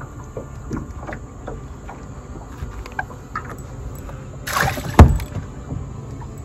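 Gear being handled in a small fishing boat: light scattered knocks and clicks, then about four and a half seconds in a short rush of noise ending in a single sharp, loud knock.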